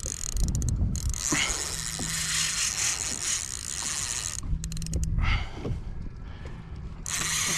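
Spinning reel being cranked against a fish on a deeply bent rod: the reel whirs mechanically in spells, with scattered clicks and a few low handling thumps.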